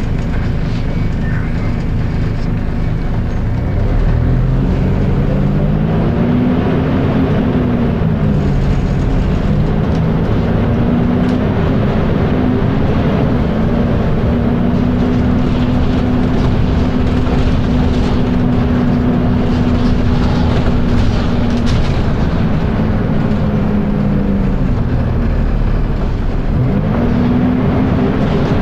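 Volvo B10BLE bus's horizontal six-cylinder diesel engine and very loud cooling fan running. The pitch rises and falls as the bus picks up speed through the gears, holds steady for a long stretch, then drops and climbs again near the end.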